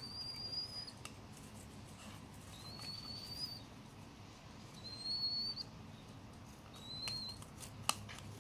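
Young hand-reared sparrow giving four thin, high, slightly rising calls, about two seconds apart, while it quivers its wings at the feeding bowl, as a fledgling begging for food does. A sharp click or two near the end.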